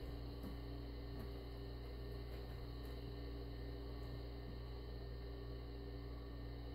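Steady low electrical hum of room noise, with a few faint light taps and scuffles in the first few seconds as two cats tussle on carpet.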